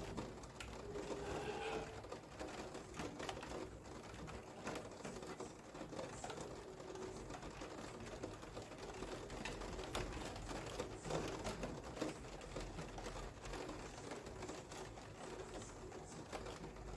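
Steady rain with irregular ticks of drops striking. About a second in there is a short, low cooing call, of the kind a pigeon or dove makes.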